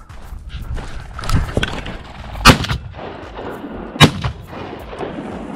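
Two shotgun shots about a second and a half apart, each a sharp, loud blast.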